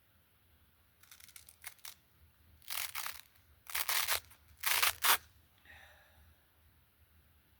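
Short rasping, tearing sounds in four bursts, from about a second in until about five seconds in, the last two the loudest: sandpaper and the sanding attachment being handled and pulled at.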